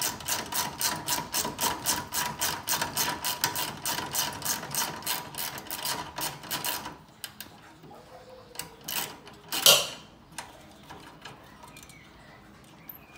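Hand socket ratchet clicking rapidly as it is swung on a nut, about five clicks a second, stopping after about seven seconds; a single knock follows a couple of seconds later.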